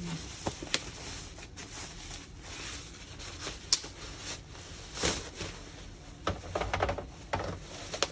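Hard plastic diorama parts being handled and fitted together: a scattered run of light clicks and taps, busiest about five seconds in and again near the end.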